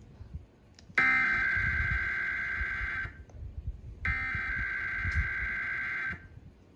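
Two bursts of Emergency Alert System header tones, the screechy digital data squeal that opens a Required Weekly Test. Each burst lasts about two seconds, with about a second's pause between them.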